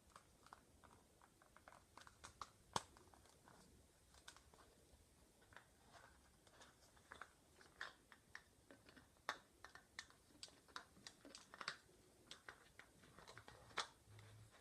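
Faint ASMR tapping: irregular light taps and clicks, a few each second, with one sharper tap about three seconds in.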